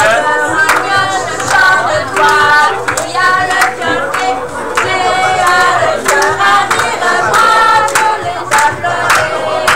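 A group singing a chant together over a steady beat of hand claps.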